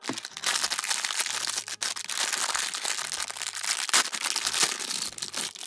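Thin clear plastic packaging bag crinkling continuously as hands handle and open it, with sharper crackles about four seconds in.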